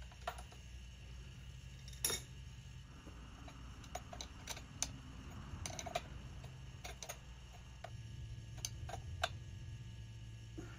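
Irregular metal clicks and taps of two wrenches working a brass quick-connect coupler tight into a ball valve on an air compressor's outlet, the loudest about two seconds in, over a low steady hum.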